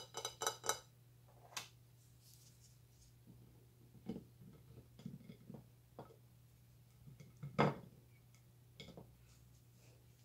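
Soap bars and a plastic peeler being handled and set down on a hard plate: a quick ringing clatter at the start, scattered soft taps, and one louder knock about two-thirds of the way through.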